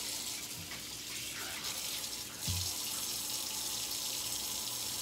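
Kitchen sink faucet running steadily, the water splashing over bok choy stalks being rinsed under it at first. One dull thump about two and a half seconds in.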